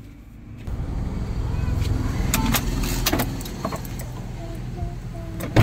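Car idling, heard from inside the cabin as a steady low rumble, with small clicks and knocks of people moving about and climbing out. A single loud knock near the end.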